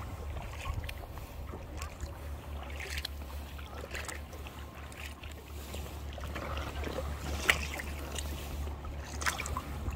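Kayak paddle blades dipping and splashing in lake water, with a steady low wind rumble on the microphone. The loudest sound is a sharp splash or knock about seven and a half seconds in.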